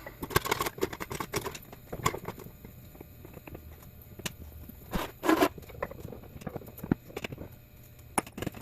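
Hand tools working at the loose metal sleeve insert in a C6 Corvette's rear transverse leaf spring, with irregular clicks, taps and scrapes of metal on metal and one longer, louder scrape about five seconds in. The insert has broken free of the spring and spins instead of coming out.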